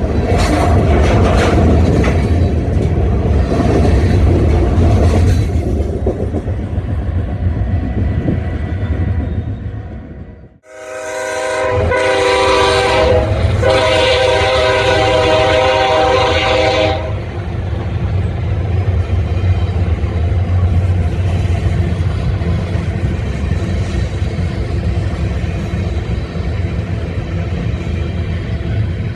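A diesel freight train rolls by with wheel clicks over rail joints. After a break, a locomotive's multi-chime air horn sounds a short blast and then a longer one, over the steady rumble of the passing train.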